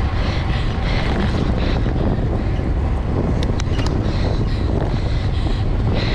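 Wind buffeting the microphone of a camera on a racing bicycle riding at speed: a steady, loud rumbling rush, with a few brief high ticks about halfway through.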